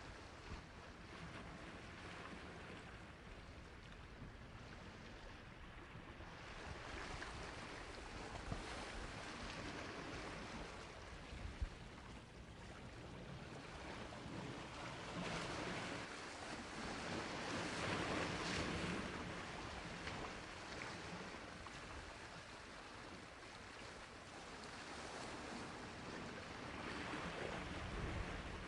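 Sea waves washing onto a shore: a steady rush of surf that swells and ebbs slowly, loudest past the middle and building again near the end, with a couple of brief ticks.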